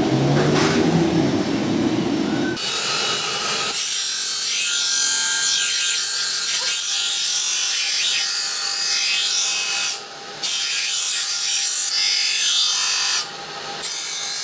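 A power tool grinding steel with a loud, harsh, high rasp. It starts a couple of seconds in, after a lower rumbling machine sound, and briefly drops away twice in the later part.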